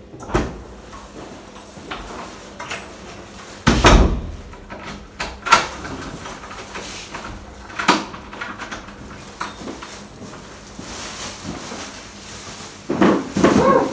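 A front door being opened and shut, with a loud thump about four seconds in, followed by a few lighter knocks and clatters as shopping bags are carried in.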